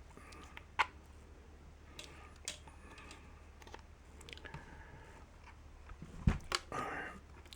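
Scattered clicks and small handling knocks as test leads and a digital multimeter are handled and set up, over a faint steady low hum.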